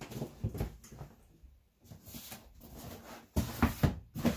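A package being handled and opened by hand: irregular rustling and knocks, with a cluster of louder bumps and scrapes near the end.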